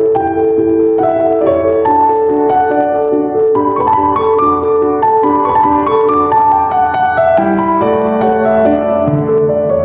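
Background piano music: a gentle melody over held chords.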